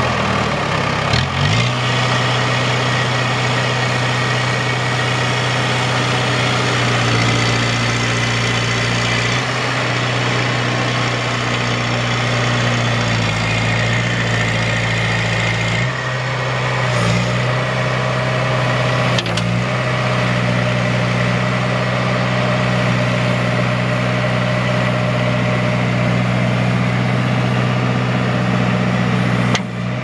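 The Case four-cylinder turbo diesel engine of a 2003 Case 580 Super M backhoe, running steadily under hydraulic load as the stabilizers and backhoe boom are worked. Its note shifts down and up several times.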